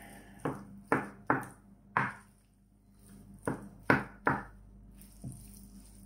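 Wooden spatula stirring and scraping a moist mixture of minced mushrooms, grated carrot and onion in a glass baking dish: short sharp strokes, about four in the first two seconds, a pause, then three more and a fainter one near the end.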